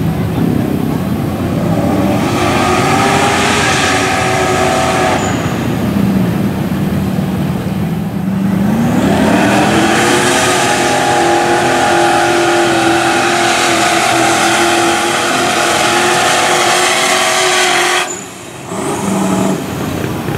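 Mud truck engine revving hard under load as its tractor tires churn through the mud, the pitch climbing about two seconds in and again around nine seconds. It holds at high revs, then drops off sharply near the end and picks up again.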